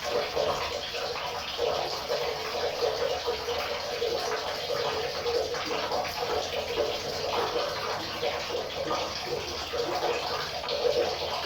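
River water flowing: a steady rush of water with a constant flicker of small splashes and gurgles.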